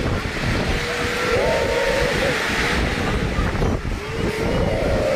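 Storm wind gusting hard against the microphone: a loud, steady rush with a heavy low buffeting rumble, over which a faint wavering tone rises and falls a few times.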